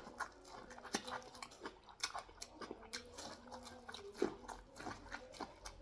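A person chewing a mouthful of sweet corn and pear close to the microphone, with irregular soft clicks and smacks of the mouth.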